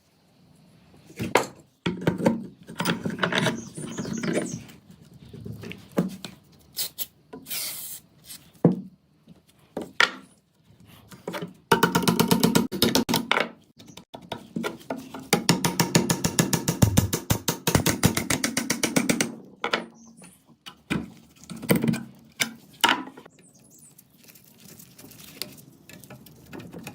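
Hand tool work on metal gun parts: scattered knocks, clicks and scrapes, with two longer stretches of fast, even rasping strokes, about twelve and sixteen seconds in.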